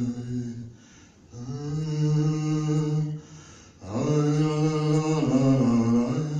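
A man's low voice chanting in long, held notes, breaking off twice, about a second in and again a little after three seconds.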